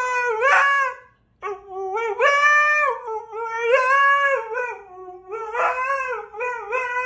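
Husky howling and 'talking': a string of wavering yowls that rise and fall in pitch, with a brief pause about a second in.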